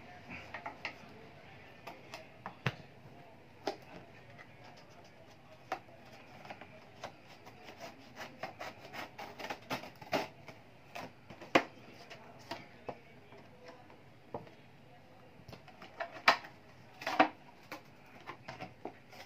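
A cardboard doll box and its clear plastic tray being cut open with scissors and handled: irregular clicks, taps and rustles, with a few louder knocks in the second half.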